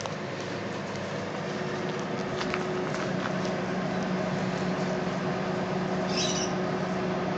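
A steady low machine hum that grows slowly louder, with faint scattered clicks and a short high chirp about six seconds in.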